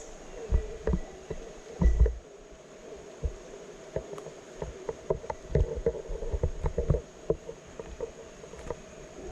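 Rainforest insects droning steadily on one high thin note, over a continuous low hum. Irregular dull low thumps come through, heaviest about two seconds in and again between about five and seven seconds.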